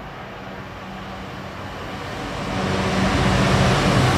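Class 66 diesel locomotive approaching, its two-stroke V12 engine giving a steady low drone that grows steadily louder, with a rushing noise building over the last couple of seconds.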